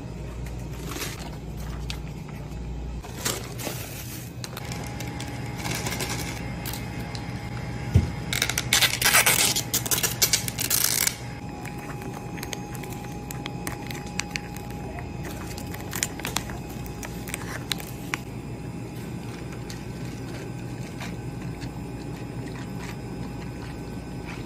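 Plastic drink packaging and an ice cup being handled: scattered crinkles and clicks, with a loud stretch of crackling plastic from about eight to eleven seconds in, over a steady low hum.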